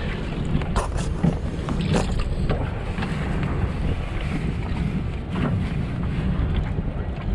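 Wind buffeting the microphone in a steady low rumble, with a few short clicks scattered through it.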